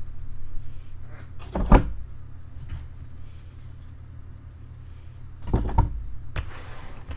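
Two dull knocks about four seconds apart, then a brief rustle near the end, over a steady low hum: boxes and packs of trading cards being handled on a table.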